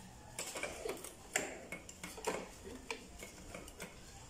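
Irregular light metallic clicks and clinks, starting about half a second in, as the cylinder and piston parts of a BT80 two-stroke motorized-bicycle engine are handled by hand.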